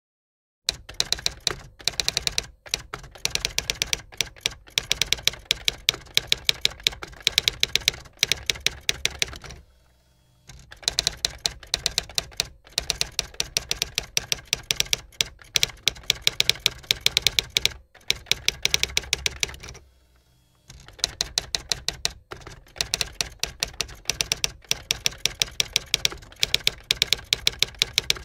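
Typewriter typing sound effect: a rapid, continuous run of key strikes that starts just under a second in and breaks off briefly twice.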